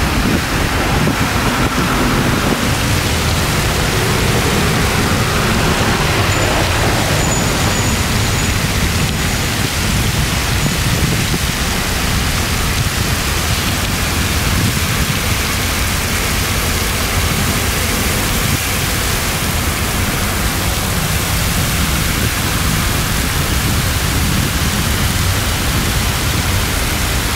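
Steady rush of fountain jets spraying and splashing into a stone basin, like heavy rain on water, over a low rumble of city traffic.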